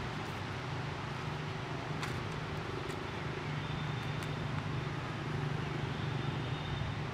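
Steady low mechanical hum under outdoor background noise, with a few faint soft clicks about two to four seconds in.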